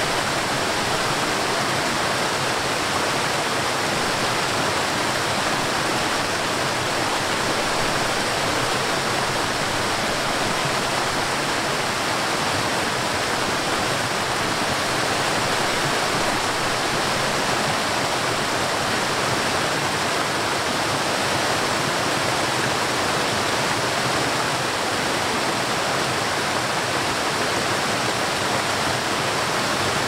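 Waterfall cascading down a series of rock ledges: a steady, even rush of falling and splashing water.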